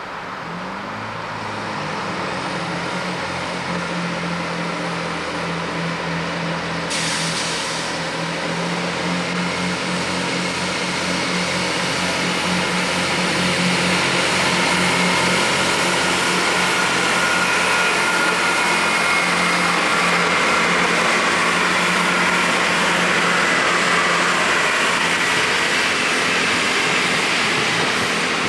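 Diesel train engine revving up about a second in, then running steadily with a pulsing note and growing louder over the first half. A short hiss of air comes about seven seconds in, and a thin high whine joins in over the second half.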